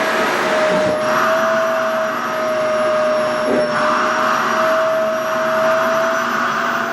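SHARP EC-KP7F-A vacuum cleaner running steadily, with a constant whine over rushing air. The air sound shifts in tone and strength a few times as the nozzle draws at a stiff, airy organza skirt fabric.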